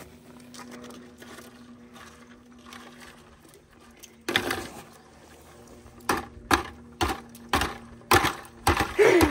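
Birch sap emptied from an ice-coated plastic collection jug into a plastic five-gallon bucket: a short splash about four seconds in, then a run of sharp plastic knocks, about two a second, as the jug is tipped and knocked against the bucket.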